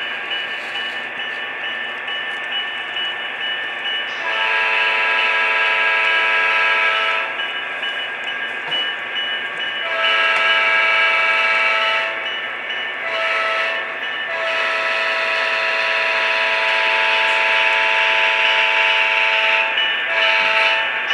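HO scale model locomotive's sound-decoder horn blowing long, long, short, long, the grade-crossing signal, then one brief toot near the end, over the locomotive's steady engine sound.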